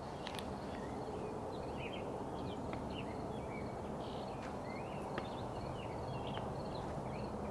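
Small birds chirping in quick short calls, many times over, above a steady low rushing background noise.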